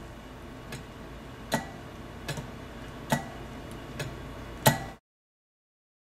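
Light metallic clicks from the lever and linkage of an antique slow-opening gas valve as it is worked by hand, about one every 0.8 s, some with a brief ring.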